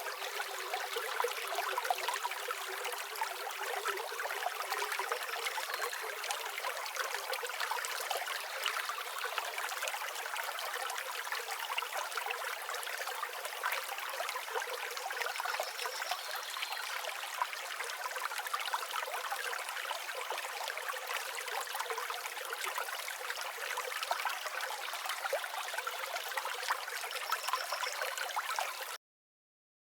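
Stream water flowing and trickling steadily, which cuts off suddenly near the end.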